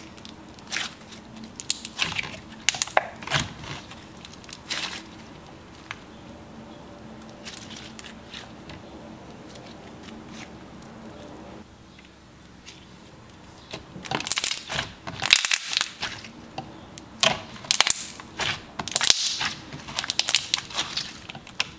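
Thick, creamy slime being squeezed, stretched and folded by hand, giving irregular sticky crackles and little pops. The crackling is sparse for the first half and turns busier and louder about two-thirds of the way in.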